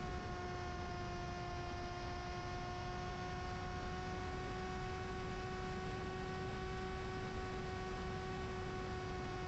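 Ritewing Mini Drak flying wing's electric motor and propeller running steadily at cruise throttle: an even, nearly constant-pitched drone, over the rush of air past the plane.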